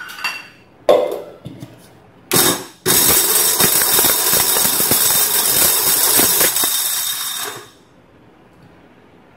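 Electric mixer grinder with a steel jar grinding dry dates (kharek): a short pulse about two seconds in, then it runs for about five seconds and stops. Metal clinks from the jar and lid come before it starts.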